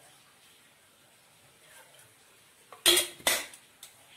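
Two sharp clanks of stainless steel about three seconds in, with a lighter clink just after, as the steel oil container and its lid are handled and set down. Before that, only a faint quiet stretch while the oil is poured.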